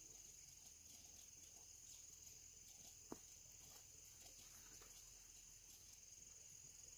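Faint, steady, high-pitched insect chirring, with a single sharp click about three seconds in.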